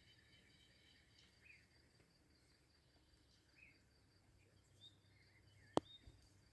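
Faint outdoor ambience: a steady high insect trill, with a few short bird chirps now and then. A single sharp click near the end.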